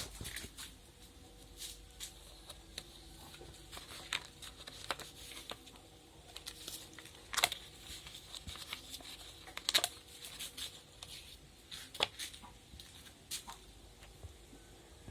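Sheets of animation paper being handled and worked at a paper punch machine: rustling paper with irregular sharp clicks and knocks, the loudest a few seconds apart, over a faint steady hum.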